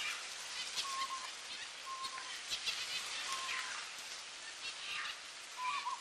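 Double-barred finch calling: short nasal notes repeated four times, about one to two seconds apart, among quick high chirps over a steady background hiss.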